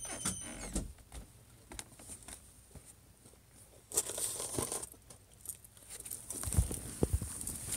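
Irregular rustling and crinkling handling noise with scattered clicks and soft low thumps, picked up by a phone's own microphone. A few short high chirps sound right at the start, and the rustling thickens about four seconds in and again near the end.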